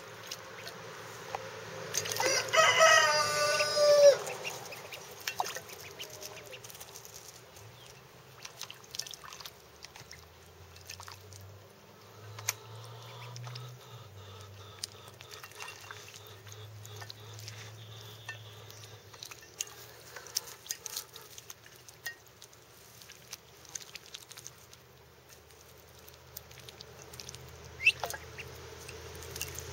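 A rooster crows once, about two seconds in, a single drawn-out call that drops at its end. Under it and afterwards, runner ducklings make faint small splashes and dabbling ticks as they paddle in a shallow bowl of water.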